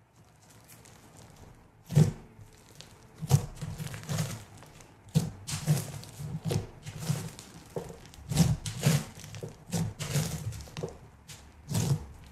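Fluffy pink slime with foam beads being squeezed and pressed by fingers, giving irregular sticky pops and crackles, several a second, starting about two seconds in.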